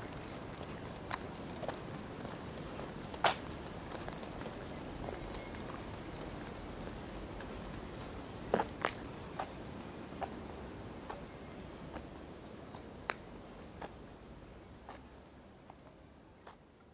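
Steady high-pitched buzzing of insects in surrounding vegetation, with scattered sharp clicks of footsteps on pavement. The sound fades out near the end.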